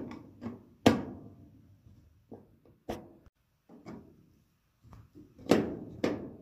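Flathead screwdriver working screws out of a sheet-metal furnace panel: a string of sharp metal knocks and scrapes, each ringing briefly in the panel. The loudest comes about a second in, and two more come close together near the end.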